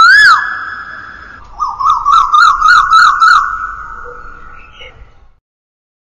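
A loud, long wailing bird call that swoops up and then drops away, followed by a quick warbling run of notes on the same pitch, fading out about five seconds in.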